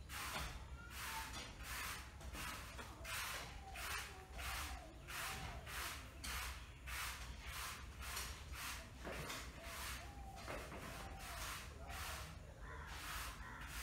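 Stiff broom sweeping a rough concrete floor: a steady rhythm of swishing strokes, about two a second.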